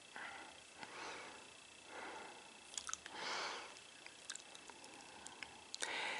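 Soft breathy puffs and faint wet mouth clicks close to the microphone, several short breaths about a second apart, the loudest about three seconds in.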